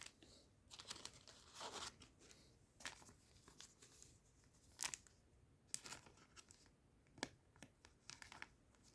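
Faint rustling and a few light, sharp clicks of trading cards being handled and flicked through, with the crinkle of a foil booster pack.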